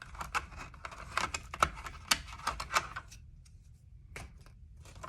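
Plastic clicking and rattling as a new typewriter ribbon cartridge for an IBM Wheelwriter 1000 is handled and its tab pulled out: a quick run of sharp clicks for about three seconds, then quiet apart from one more click near the end.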